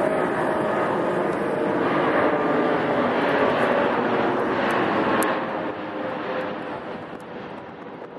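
Airbus A380's jet engines, a loud steady rush of noise with a few held whining tones. From about five seconds in it fades steadily away.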